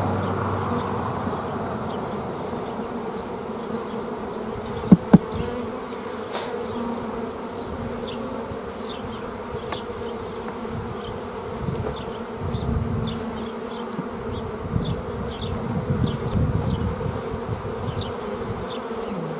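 Honeybees buzzing around an open hive, a steady, dense hum. Two sharp knocks come close together about five seconds in.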